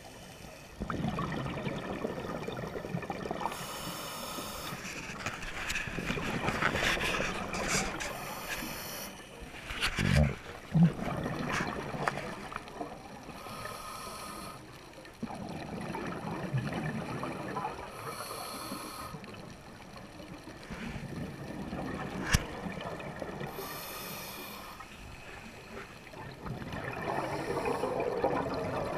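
Scuba regulator breathing heard underwater: a hissing inhale about every five seconds, with a bubbling rush of exhaled air between. A few sharp knocks stand out, the loudest about ten seconds in.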